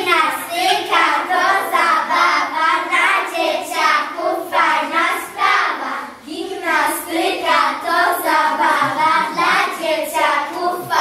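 A group of children singing a song together, with a short break about six seconds in.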